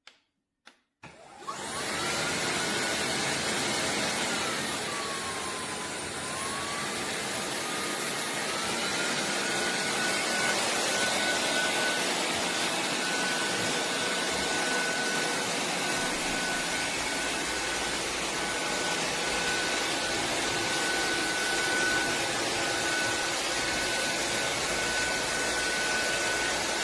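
Roborock F25 LT wet-and-dry vacuum mop starting up after a couple of clicks and running steadily with a high motor whine; the whine sags in pitch for a moment about six seconds in, then recovers. It cuts off abruptly near the end.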